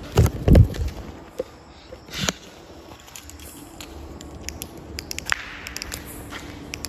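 Two heavy thumps in the first second, then scattered light clicks and scuffs of footsteps on a gritty concrete floor.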